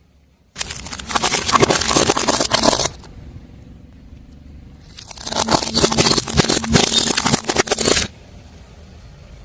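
Crunchy objects crackling and crunching as a car tyre crushes them, in two stretches of about two to three seconds each, with quieter low car noise in between.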